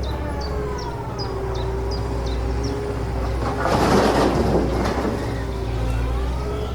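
Huina radio-controlled toy excavator running, a steady low hum with its electric motors whining up and down in pitch. Short high chirps repeat about three times a second for the first few seconds, and a brief noisy rush comes about four seconds in.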